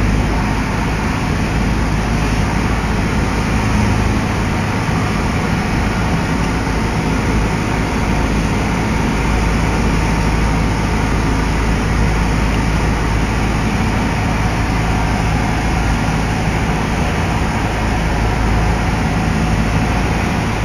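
Cessna 172P's four-cylinder Lycoming O-320 engine and propeller running steadily in cruise flight, a constant low drone heard from inside the cabin.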